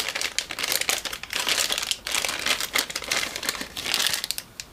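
Clear plastic bag crinkling in the hands as a small power adapter is pulled out of it: a dense run of sharp crackles that dies down near the end.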